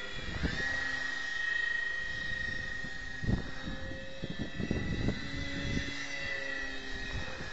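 Radio-controlled model plane in flight, its motor and propeller giving a steady high whine that drops in pitch just at the start and then holds, with irregular low rumbling buffets over it.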